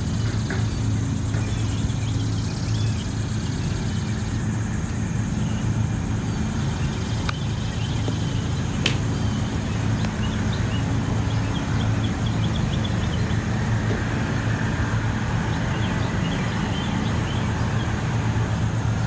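Steady low hum throughout, with faint high chirps scattered over it. About seven and nine seconds in come two sharp clicks of wedge chip shots striking golf balls.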